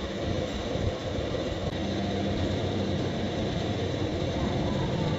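Steady low rumbling background noise, with a faint hum joining in about two seconds in.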